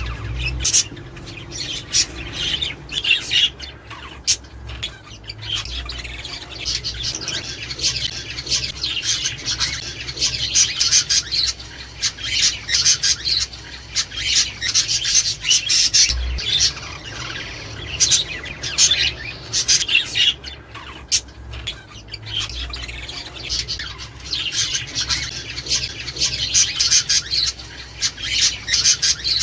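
A flock of budgerigars chattering: a dense, unbroken stream of many short, overlapping calls from several birds at once.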